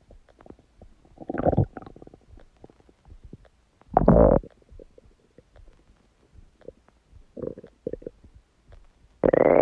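Human stomach gurgling: scattered small pops and bubbles, a short gurgle about a second and a half in, a louder one about four seconds in, and a few small ones later. Near the end a loud, long growl starts, rising in pitch.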